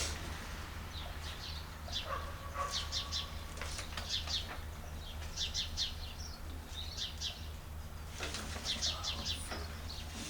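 Small birds chirping in short, quick series of high notes, over a steady low hum.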